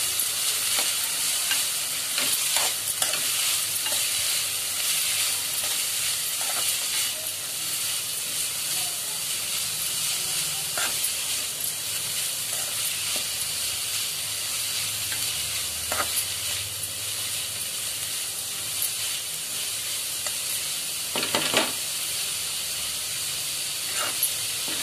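Chopped onions with green chillies and tomatoes sizzling as they fry in a pan, stirred with a spoon that knocks against the pan a few times. They are being fried until the raw smell goes.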